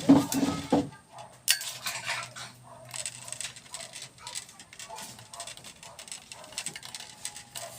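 Plastic and metal parts of a ring light and its stand being handled and fitted together: a jumble of clicks, taps and rattles, busiest in the first second, with a sharp click about a second and a half in.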